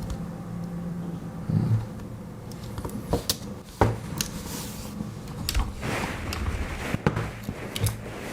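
Handling noise of Swiss Army knives: several sharp clicks of the small scissors and tools, spread apart, among soft rustling.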